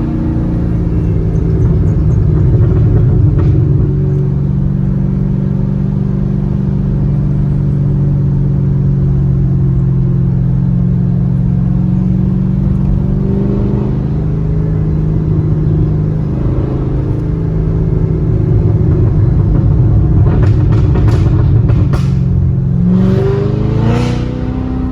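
2019 Corvette ZR1's supercharged 6.2-litre LT5 V8 through an Armytrix valved exhaust, running at steady revs for most of the time. Near the end come a few sharp crackles, then a quick rising rev blip with an exhaust burp, the sound of a rev-matched downshift.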